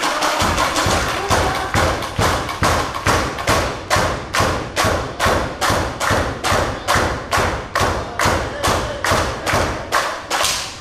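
A steady, evenly spaced run of sharp thuds, about three a second, during a pro wrestling bout in the ring corner.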